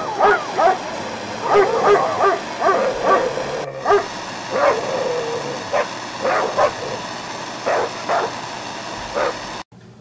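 Dog whining and yipping in many short, high calls that bend in pitch, repeated one after another, stopping abruptly shortly before the end.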